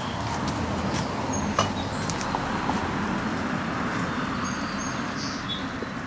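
Outdoor ambience: a steady low rumble and hiss, with a few short high bird chirps and several sharp clicks in the first two seconds.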